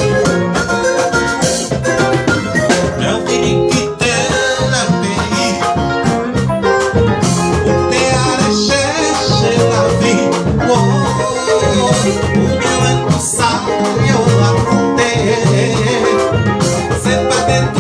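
A live band playing on a drum kit with cymbals and other instruments, with a man singing into a microphone.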